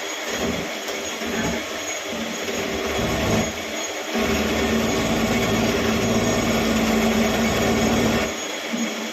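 Workshop machinery running with a constant mechanical din. An electric motor joins with a steady hum about four seconds in and stops shortly before the end.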